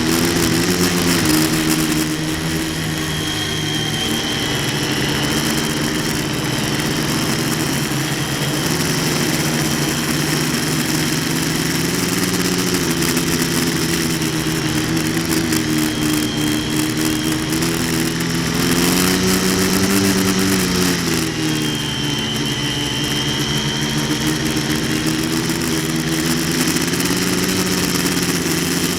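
Quadcopter's electric motors and propellers humming continuously, the pitch rising and falling with throttle changes, most clearly rising about two-thirds of the way in.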